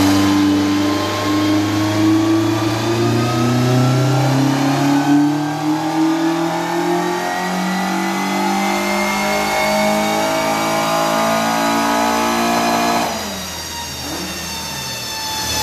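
Peugeot 205's four-cylinder engine on individual throttle bodies running a load sweep for final ignition-advance mapping, its revs climbing steadily from about 2,500 toward 7,000 rpm. About thirteen seconds in the throttle is lifted: the sound drops suddenly and the revs fall away.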